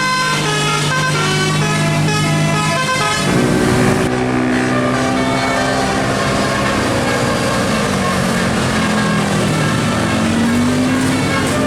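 Tour bus's musical 'telolet' air horn playing a quick melody of short notes, changing about three seconds in to longer held tones over the bus's running engine.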